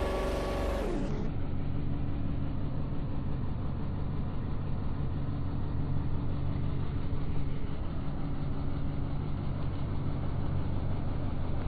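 An engine idling steadily, a low even drone. In the first second its pitch slides down and then settles.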